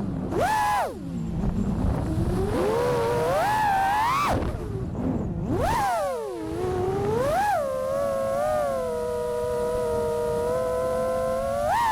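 Brushless motors of an FPV freestyle quadcopter, Vulcan Innovation motors, whining as the throttle works. The pitch sweeps up and down, drops sharply about four and six seconds in, then holds fairly steady before rising again at the end.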